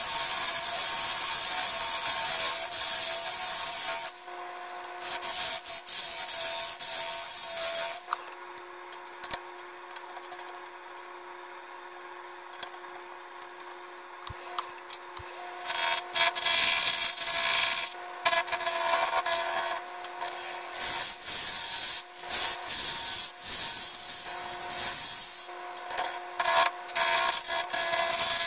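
Wood lathe turning: a gouge cutting a spinning wooden blank, a rough shaving and scraping noise with bursts as the tool bites. Partway through, the cutting stops for about seven seconds and only the lathe's quieter steady hum is left, then the cutting resumes in short bursts.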